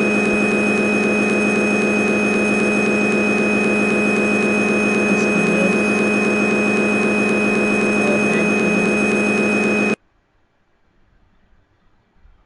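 Steady machine hum with a constant whine that does not change in pitch, cutting off abruptly about ten seconds in.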